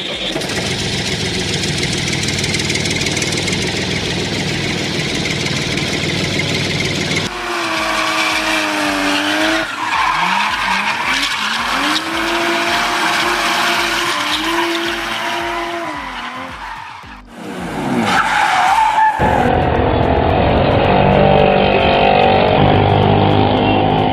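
A string of vehicle sound effects: about seven seconds of steady engine and tyre noise, then a wavering pitched tone gliding up and down for about ten seconds, then, after a brief falling sweep, an engine running.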